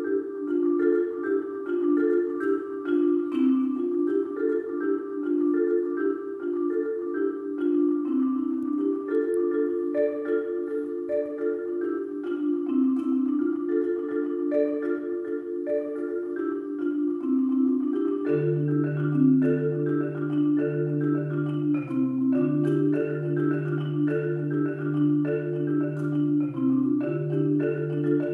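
Solo concert marimba played with mallets: a quick, repeating pattern of notes in the middle register. About two-thirds of the way in, low bass notes join underneath and carry on beneath the pattern.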